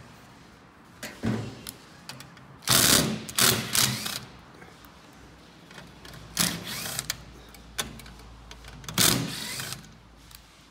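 Metal-on-metal clatter of a steel mounting bracket, screws and a hand screwdriver against a car stereo head unit's sheet-metal chassis as the bracket is fitted. Several short clattering bursts, the loudest cluster about three seconds in.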